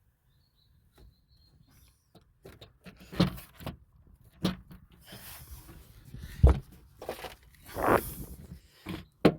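Knocks, clunks and short rubbing noises from a replacement seatbelt assembly and its plastic parts being handled and pushed into place, starting about three seconds in, with a sharp click just before the end.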